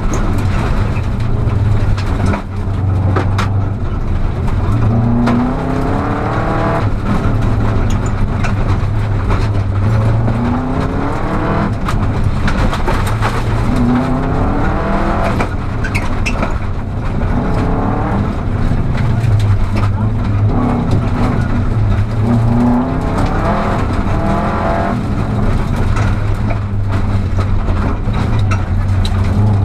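Rally car's engine heard from inside the cabin, revving hard and climbing in pitch through each gear, then dropping back at the gearchanges, again and again. Sharp clicks and knocks from loose gravel on the dirt road are scattered over it.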